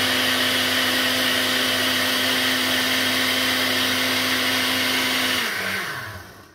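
Countertop glass-jar blender running steadily, churning milk, Oreo biscuits and ice cream into a milkshake. About five and a half seconds in it is switched off, and the motor winds down to a stop, its pitch falling.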